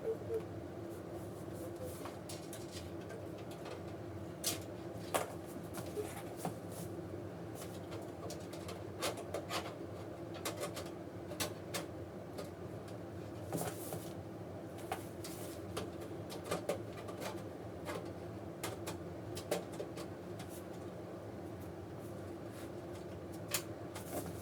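Scattered sharp clicks and light knocks of a motherboard being handled and fitted into a PC case, with parts tapping against the metal case. A steady low hum runs underneath.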